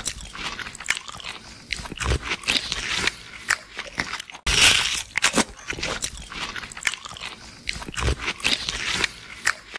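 Cartoon eating sound effect: loud, crisp bites and chewing crunches, one after another. The same crunching clip starts over about four and a half seconds in.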